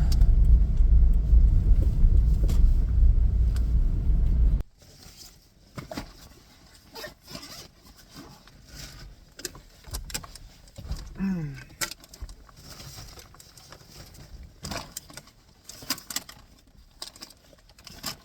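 A car's engine and cabin rumble runs steadily, then cuts off abruptly about four and a half seconds in, as if the engine is switched off. After that come scattered clicks, taps and rustles of keys and gear being handled.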